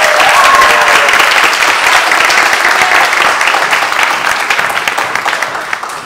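Audience applauding, a dense patter of many hands clapping that fades toward the end.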